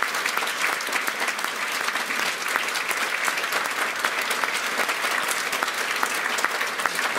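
Audience applauding steadily: a dense, even patter of many hands clapping that holds at one level throughout.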